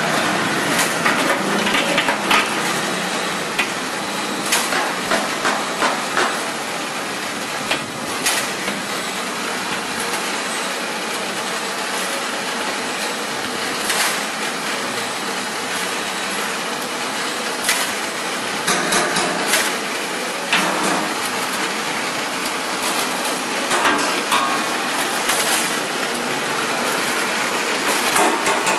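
Stainless-steel automatic egg peeling machine running: a steady mechanical clatter with scattered clicks and knocks as hard-boiled eggs tumble through its wire cage and over its rollers.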